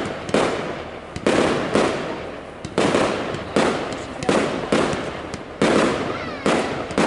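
Fireworks display: aerial shells bursting one after another, about nine bangs in quick succession, each fading away over a fraction of a second before the next.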